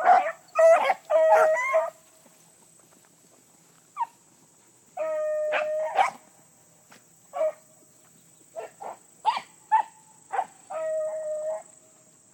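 Beagles baying while running a rabbit: a quick burst of bawls at the start, then after a lull scattered short barks and a couple of long drawn-out bawls. A faint steady high whine runs underneath throughout.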